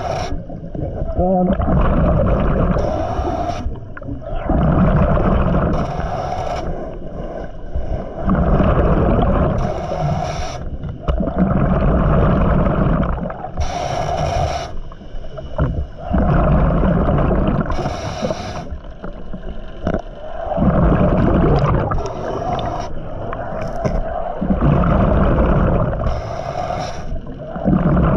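Scuba diver breathing through a regulator underwater. Each breath is a short hiss on the inhale, followed by a longer rumble of exhaled bubbles, about one breath every four seconds.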